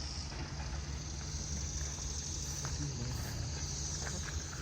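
Steady low engine hum with a steady high insect drone, like crickets, above it, and faint distant voices.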